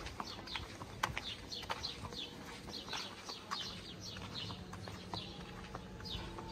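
Small birds chirping in a rapid series of short falling chirps, with the scattered clicks of footsteps on pavement.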